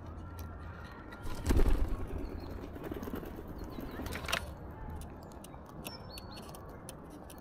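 A bird's wings flapping in a short, loud flurry about a second and a half in, followed by a single sharp tap a few seconds later.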